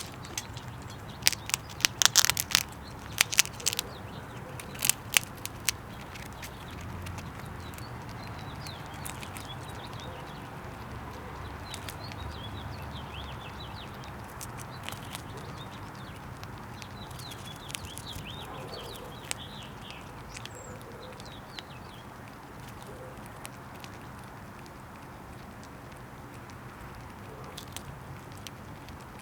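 Sharp clicks and knocks in clusters over the first few seconds, from a squirrel working at peanuts in a bird house feeder. Faint high bird chirps and twitters come through the middle, over a steady low hum.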